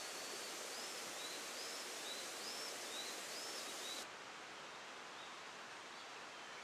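Steady outdoor ambience, an even rushing hiss, with a small bird repeating short up-and-down chirps about twice a second for the first four seconds. About four seconds in, the ambience cuts abruptly to a slightly quieter one, with a couple of faint chirps.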